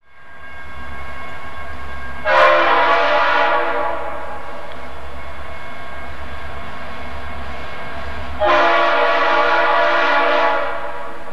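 Kansas City Southern diesel locomotive horn sounding two blasts, a shorter one about two seconds in and a longer one near the end, over a steady low rumble of the train.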